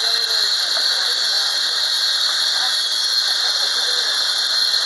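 Steady, loud hiss with a strong high-pitched squealing band that holds unchanged, from metalworking in a fabrication shop.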